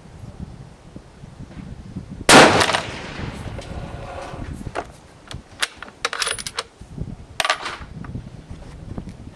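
A single .308 Winchester rifle shot from a Tikka T3 Varmint about two seconds in, loud with a short echoing tail. A few seconds later comes a run of sharp metallic clicks and clinks, typical of the bolt being worked and the spent brass ejected.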